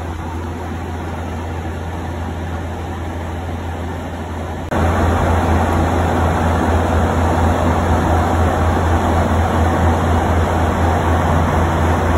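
Steady rushing drone of a jet airliner cabin in flight, with a strong low hum under it. It jumps abruptly louder about five seconds in and stays at that level.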